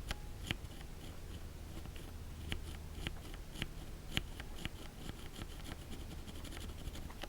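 Linear mechanical keyboard switches pressed off-centre by hand right at the microphone: light clicks, a couple a second from about two seconds in, with a faint scratchy rub of the stem sliding in its housing. Off-centre presses bring out friction, which is scratchiest on the Cherry retooled black.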